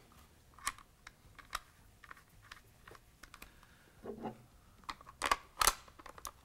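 Scattered light clicks and taps as the rear half of a disassembled Arisaka Type 2 takedown rifle is handled, with a quicker run of sharper clicks about five seconds in.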